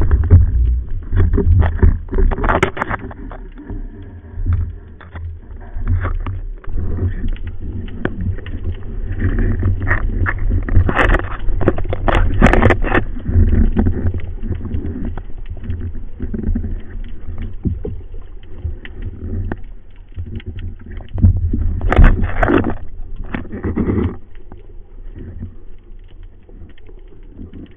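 Underwater noise through a speargun-mounted camera's housing: a steady deep rumble of water movement, with louder clusters of bubbling and knocking about two seconds in, around eleven to thirteen seconds in, and about twenty-two seconds in, as a speared grouper is handled and brought up.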